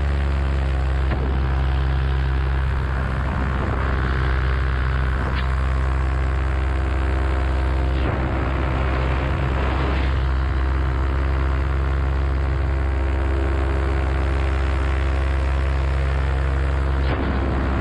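Vittorazi Moster two-stroke paramotor engine and propeller running at steady cruise power in flight, an even drone with a few faint brief noises over it.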